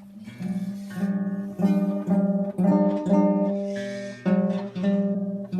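Acoustic guitar strumming chords, a new chord about every half second to a second, each ringing and fading: an instrumental intro.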